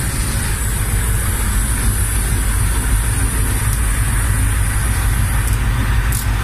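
Diesel-electric locomotive heard from inside its cab while the train is moving: a loud, steady low engine rumble mixed with running noise, with two faint ticks near the end.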